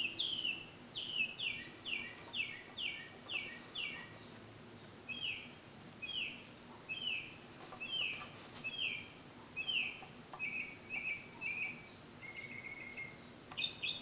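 A bird chirping over and over in short, falling chirps, about two a second, turning into quicker, lower chirps near the end.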